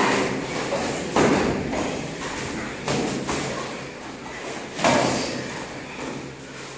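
Kickboxing sparring: four separate thuds of kicks and punches landing on gloves, shin guards and body, echoing in a large room. The loudest thud comes near the end.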